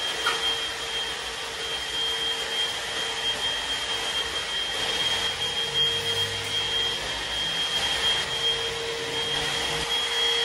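2-in-1 stick vacuum cleaner running steadily as it is pushed over the floor, a high whine and a lower hum over the rush of air.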